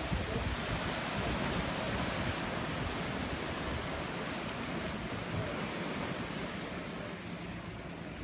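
Sea surf washing against a rocky cove, a steady rushing of waves, with wind buffeting the phone's microphone. The rush softens a little near the end.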